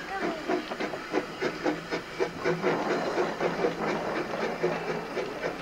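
Small Quarry Hunslet 0-4-0 saddle-tank steam locomotive puffing as it pulls away slowly, its exhaust beats coming at about three a second with steam hiss.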